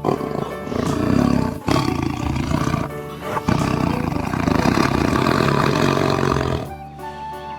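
Tiger roaring in three long stretches, the last about three seconds long, over background music.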